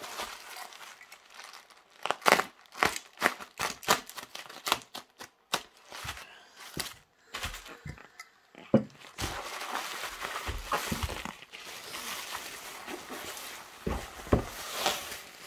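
Plastic bubble wrap being slit with a box cutter and pulled open: a run of sharp crackles and clicks, then a steady crinkling rustle of the plastic, with a soft knock near the end as a cardboard box is set down.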